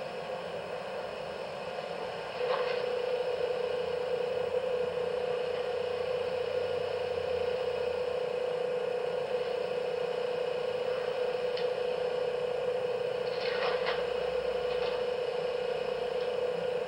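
Background recording hiss, joined about two seconds in by a steady mid-pitched tone that holds unchanged, with a few faint clicks and rustles.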